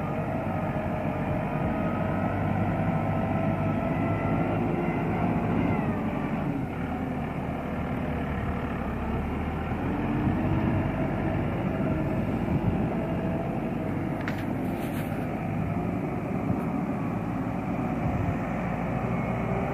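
Diesel engine of a Case IH JX75C front-loader tractor running steadily as the tractor manoeuvres close by. Its note dips a little about six seconds in.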